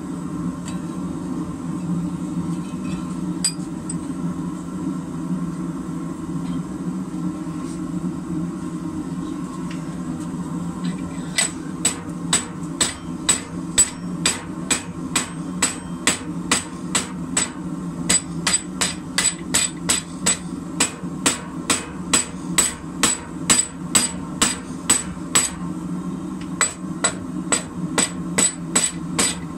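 Hand hammer striking the red-hot end of a rebar held upright in a vise, upsetting it to thicken the end. The blows come evenly, about twice a second, from about eleven seconds in, with a short pause near the end. A steady low hum runs underneath.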